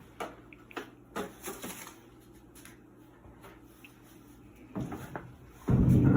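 Scattered light clicks and knocks from handling the washing machine's control-panel parts, then a louder low rumbling noise about five seconds in.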